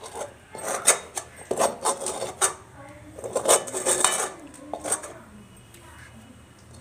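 Steel spoon and spatula scraping and clinking against a metal pan and plate while sticky rice-flour dough is scooped out, a run of sharp clinks and scrapes that thins out after about five seconds.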